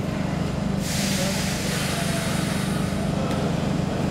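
Stockholm Metro C6 car standing at a platform with its steady electrical hum, and a sudden hiss of released compressed air about a second in that fades away over about two seconds.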